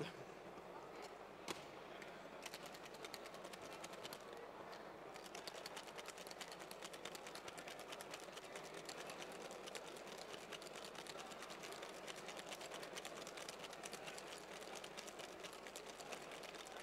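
Ice rattling fast in a cocktail shaker, shaken hard and at length, starting about two and a half seconds in. The basil was not muddled, so the drink must be shaken very long.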